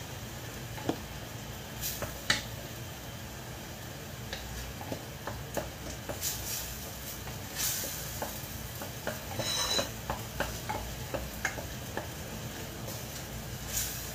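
A wooden spoon stirs and sautés a thick tomato and chili-spice paste in a ceramic pot, over a light sizzle. Many irregular knocks and scrapes come from the spoon against the pot, with the sharpest knock a little over two seconds in.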